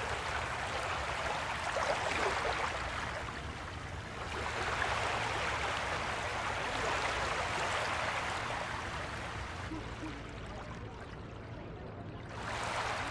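Small waves lapping and washing in the shallows at the water's edge, swelling and easing every few seconds.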